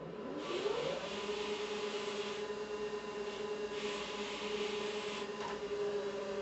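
A small electric motor spins up within about a second and then runs at a steady pitch, with two stretches of hissing, scraping noise over it.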